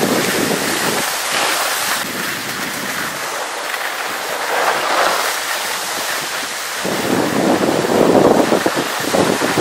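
Wind rushing over the microphone together with the hiss of skis sliding on snow during a downhill run. The low buffeting drops away for a few seconds, then comes back stronger and gustier near the end.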